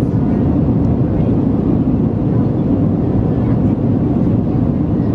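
Steady low rumble of an Airbus A321 airliner's cabin heard from a passenger seat, even in level throughout.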